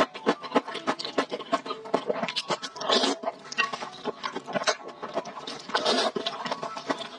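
Close-miked wet eating sounds of sticky black-bean-sauce noodles: rapid smacking, sticky clicks of chewing, with two longer slurps about three and six seconds in.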